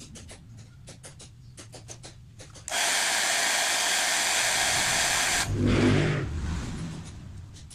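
A hair dryer blowing hard for about three seconds, switched on and off abruptly, heating the touchscreen to soften the glue that holds it to the LCD. Light ticking comes before it, and a motor vehicle's engine passes just after it.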